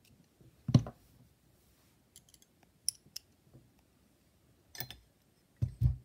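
Small metal hardware and a T-handle hex key clicking and tapping as they are picked up and set down on a work mat: a sharp knock less than a second in, a few light clicks in the middle, and a duller, heavier knock near the end.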